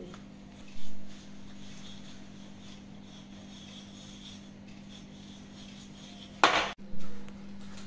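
Spatula stirring crushed biscuit crumbs and butter in a glass bowl: soft scraping over a steady low hum, with a short louder clatter about six and a half seconds in.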